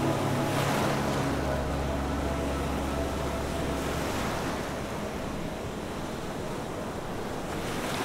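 Ocean surf breaking over rocks: a continuous rushing and seething of white water, swelling louder about a second in and again near the end.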